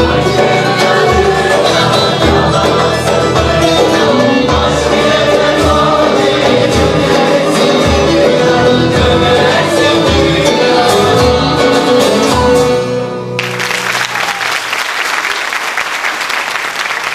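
Turkish folk music choir singing with a saz ensemble of bağlamas, flute, bass guitar and frame drum keeping a steady beat. The piece stops abruptly about 13 seconds in, and the audience applauds.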